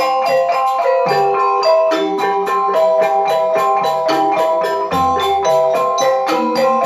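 Balinese semar pegulingan gamelan playing: keyed metallophones ring in a fast, even stream of struck notes. Kendang drum strokes land now and then, and a bamboo suling flute plays along.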